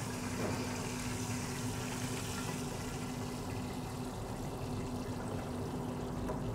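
Hot vegetable oil sizzling steadily in a 12-inch skillet as breaded lamb chops pan-fry, over a steady low hum.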